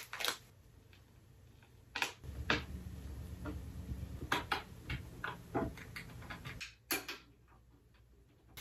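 Irregular light clicks and knocks of small hardware and a metal frame being handled while a flat-pack metal-framed shoe rack is assembled, a hand tool working screws into its wooden shelf board. The taps come in a cluster through the middle, with a sharper knock about seven seconds in and quiet stretches around them.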